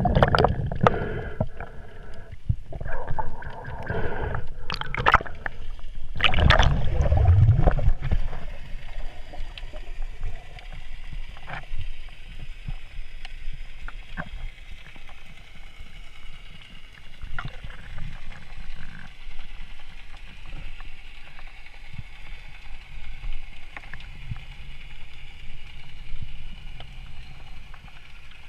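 Water sloshing and gurgling around the camera, with scattered knocks and ticks; louder and busier for the first several seconds, then a steadier, quieter rush.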